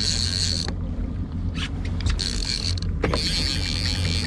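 Single-action salmon reel's clicker buzzing in spurts as a hooked chinook salmon runs and pulls line off it, with scattered clicks between the runs. Underneath is the steady low hum of the boat's outboard motor.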